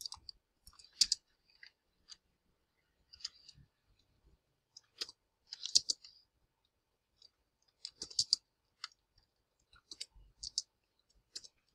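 Computer keyboard keystrokes, typed slowly and unevenly in small clusters of clicks with pauses between.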